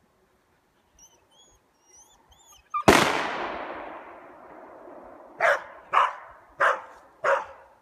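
A single gunshot cracks out and rings away over about two seconds. A dog then barks four times, about one bark every two-thirds of a second.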